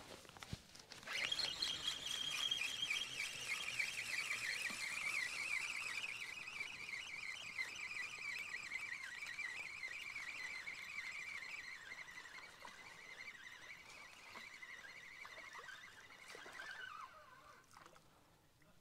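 Feeder rod and spinning reel during a cast: a high, wavering whine that starts suddenly about a second in, falls slowly in pitch and stops shortly before the end.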